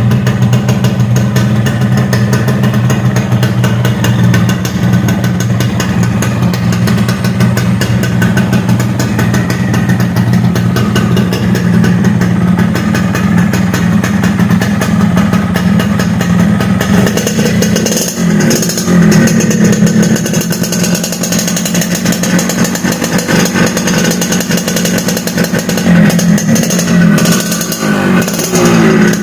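Yamaha RX-King's two-stroke single-cylinder engine running through a gutted exhaust whose baffles have been drilled out for a crisp, raspy note. It runs steadily at first, then is revved in a few surges in the second half.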